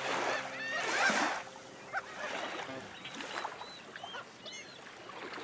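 The last chord of a strummed acoustic guitar rings and dies away over the first second or so, while gulls call again and again over a steady hiss.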